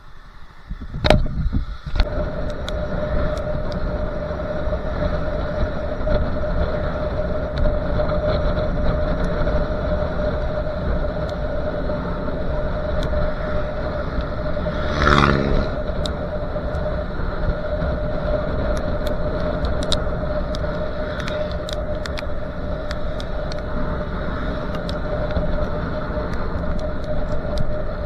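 Moving motorcycle heard from its mounted camera: a steady rumble of wind and road noise with a constant whine. There are a few knocks about a second in, and a short horn-like tone about halfway through.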